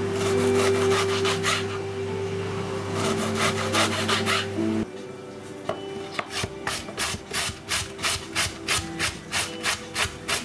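Rhythmic rasping, scraping strokes, about three a second and very even in the second half, over a steady low hum that cuts off about five seconds in.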